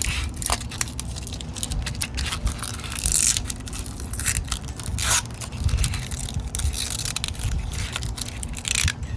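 Thin plastic crinkling and tearing in irregular crackles as a small plastic bag is opened and the protective film is peeled off a wheel center cap, over a low steady background rumble.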